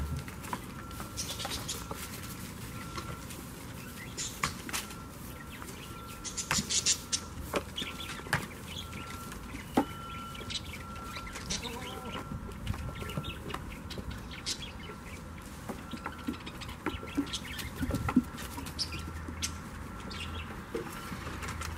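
Goats and goat kids moving about on logs and straw: scattered knocks and scuffs of hooves on wood, with rustling straw.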